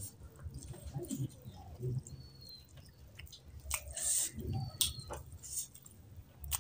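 Bare fingers squishing and mixing rice with curry gravy on a plate, with wet sticky clicks, and chewing. A few short, high chirps sound in the background.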